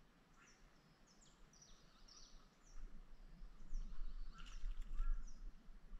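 Small birds calling repeatedly with short, falling chirps. About halfway through, a louder low rumble with a few sharp clicks joins in.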